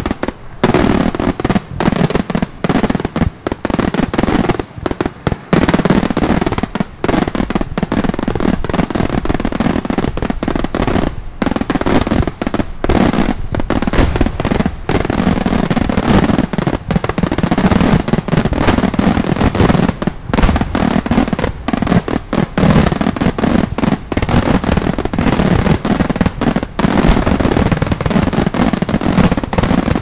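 A dense, continuous barrage of fireworks salutes: loud report shells banging in rapid overlapping succession, many bangs a second, with no pause.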